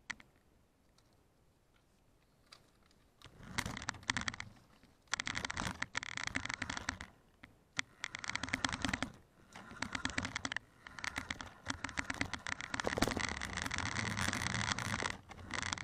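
Small toy-grade remote-control car's electric motor and drivetrain running in repeated spurts, with dense clicking and wheel noise. It starts about three seconds in and stops and starts several times as the throttle is worked.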